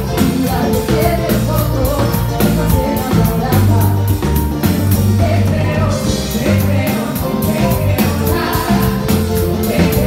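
Live band playing dance music with a lead singer: drum kit and percussion keeping a steady beat, with cymbal strokes about four a second, over bass and keyboards.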